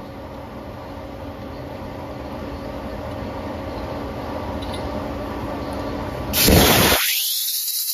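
Okuma CNC turret lathe spindle running steadily with a humming tone while an abrasive is rubbed against the spinning suppressor cap to polish out machine lines. About six seconds in a sudden loud hiss starts and the low hum drops away.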